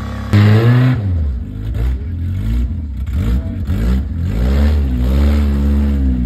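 Rock-crawler buggy engine revving up and down in repeated short bursts while it climbs over boulders, loudest just after it starts.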